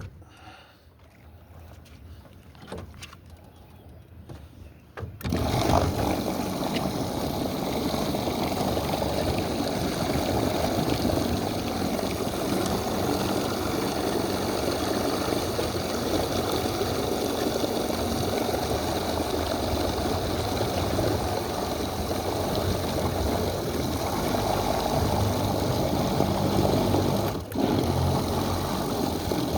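Jon boat's outboard motor running steadily, coming in suddenly about five seconds in after a few faint clicks, with a brief drop near the end.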